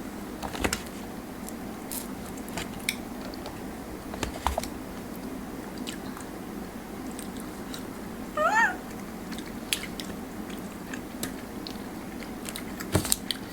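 Eating sounds: chewing with scattered short clicks and taps of cutlery and food containers, and a cluster of taps near the end. A little past halfway comes one short, high-pitched wavering call that rises and falls.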